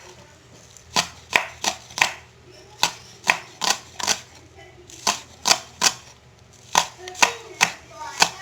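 Kitchen knife chopping on a cutting board, slicing spring onions: even cuts about three a second in short runs with brief pauses.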